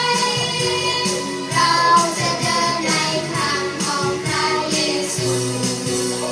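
A Christian worship song: singing voices over instrumental backing, with a regular light percussion beat.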